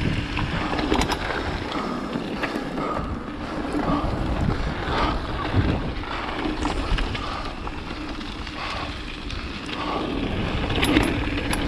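Mountain bike ridden fast down a wet trail: tyre noise over dirt and rock, sharp rattling clicks from the bike, and wind buffeting the camera microphone.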